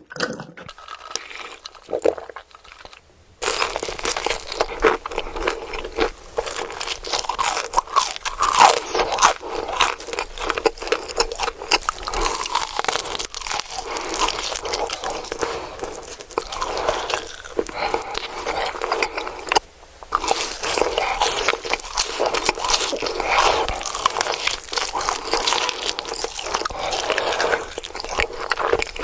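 Close-miked eating sounds: someone biting into and chewing crunchy food, with dense crisp crackling crunches. It is sparse for the first few seconds, then grows loud and busy, with a short pause about two-thirds of the way through.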